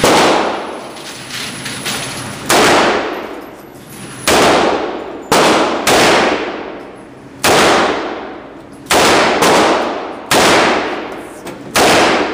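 A string of .357 Magnum handgun shots, about nine or ten, spaced one to two seconds apart. Each sharp report is followed by a long echoing decay.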